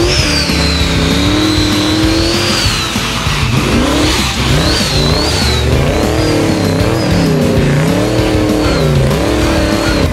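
Twin-turbo LS V8 revving up and falling off again and again under hard driving on dirt, with a high whistle rising and falling along with it.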